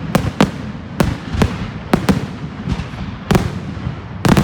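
Fireworks display: about ten sharp bangs from shells bursting, at uneven intervals, each with a short echoing tail, and a quick cluster of bangs near the end.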